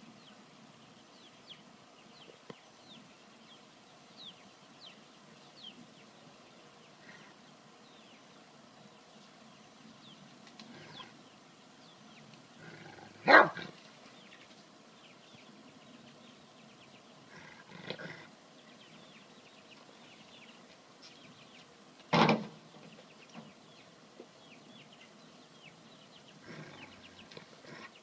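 A dog, pestered by a goat, gives two short, loud barks, the first about halfway through and the second some nine seconds later, with a weaker one between them and a few soft ones near the end.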